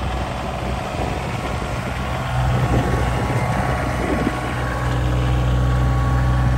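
Bobcat compact tractor's diesel engine running steadily as the tractor drives forward pushing snow with its front loader bucket. It gets louder from about a third of the way in as the tractor comes alongside.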